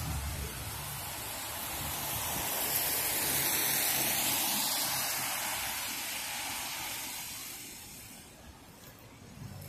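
Car tyres hissing through water on a wet road as a vehicle passes. The spray noise swells to its loudest about four seconds in and fades away near the end.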